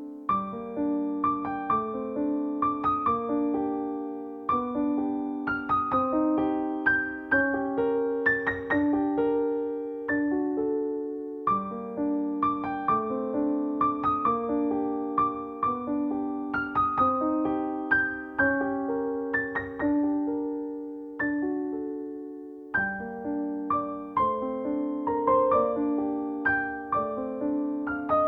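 Background music: a gentle piano playing a repeating melody of sustained, decaying notes.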